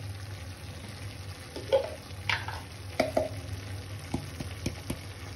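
Metal spatula stirring and scraping sliced onions and tomatoes in a metal kadhai as they fry with a light sizzle, with several sharp scrapes and knocks against the pan from about a second and a half in.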